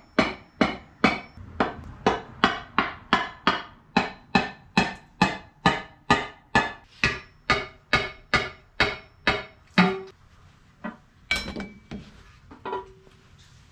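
Rubber mallet striking the oil pan of a VW TDI diesel engine in a fast, even rhythm of about two and a half blows a second, each with a short ring, to knock the pan loose from the block. The blows stop about ten seconds in, followed by a few scattered knocks.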